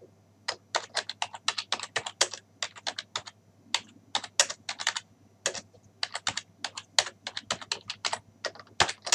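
Typing on a computer keyboard: a quick run of key clicks that starts about half a second in, with a couple of short pauses.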